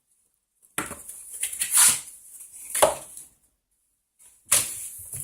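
A Kinder Surprise 4-pack being opened and its eggs handled: three short bursts of rustling and light knocking of packaging and plastic.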